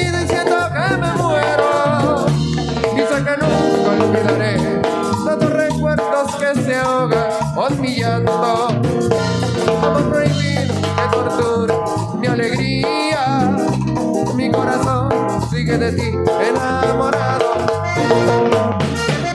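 Live band music led by an accordion, with electric guitar, timbales and congas keeping a steady dance rhythm and a rattling shaker-type percussion.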